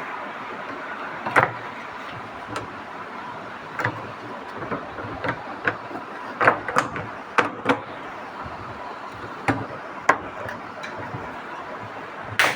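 Irregular sharp knocks and clicks of hard parts and tools being handled during work on a washing machine's gearbox, over a steady background hiss.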